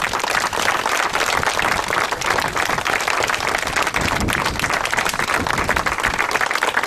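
A crowd applauding, a dense and steady patter of many hands clapping.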